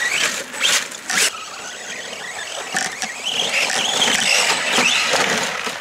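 Arrma Senton 3s BLX RC truck's brushless motor whining, its pitch rising and falling with the throttle. A few sharp knocks and splashes come as the truck crosses the wet tarp and bumps over the rough ground.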